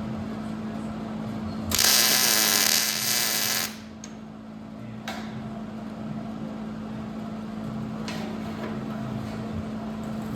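A handheld power tool runs in one loud high-pitched burst of about two seconds, starting about two seconds in and cutting off abruptly. A steady low hum runs underneath, and there are two sharp clicks later on.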